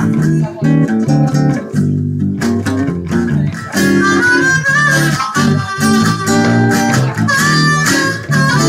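Harmonica solo over strummed acoustic guitar chords: a bluesy instrumental break by a small live band, the harmonica playing held and bending notes that stand out most in the second half.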